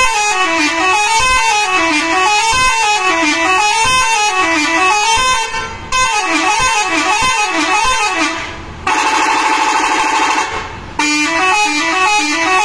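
Bus telolet horn with eight horn modules worked by hand buttons, playing a fast up-and-down tune of several tones together, one rise and fall about every second. A little after eight seconds in it holds one steady chord for about two seconds, then goes back to the up-and-down tune.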